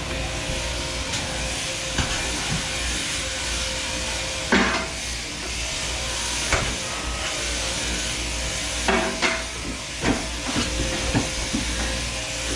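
Sheep-shearing handpiece and shearing plant running with a steady hissing buzz and low hum, with a few sharp knocks and clatters scattered through.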